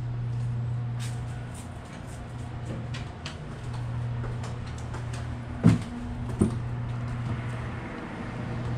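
Two sharp knocks about three quarters of a second apart, from a door being passed through, over a steady low hum and light footsteps.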